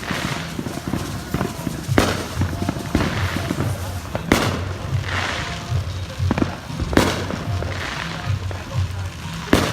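Fireworks going off: four loud bangs about two and a half seconds apart, each trailed by crackling, with smaller pops between. Music with a pulsing bass and voices run underneath.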